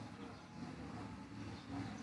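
Faint steady background noise with a low hum, and no distinct sound event.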